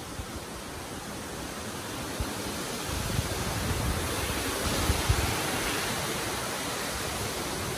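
Steady rush of a mountain stream spilling over small stone cascades, growing louder through the middle, with a few low bumps against the microphone.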